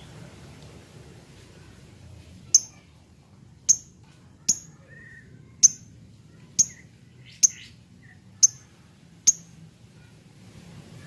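Lovebird giving a series of eight short, sharp, high-pitched chirps, about one a second, over a faint low background hum.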